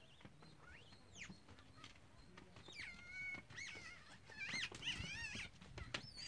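Infant gray langur giving a series of high-pitched squealing whimpers that rise and fall, some held and wavering. They grow louder and come closer together in the second half.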